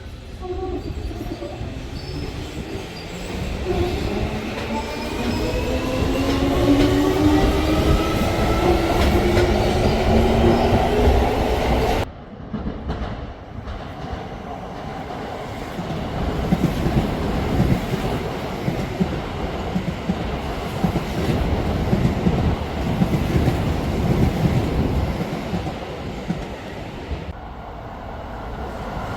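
Keio Line electric train pulling away, its traction motors giving a whine that climbs steadily in pitch as it gathers speed. About twelve seconds in the sound changes abruptly to a train running past, with wheels rumbling and knocking over the rails.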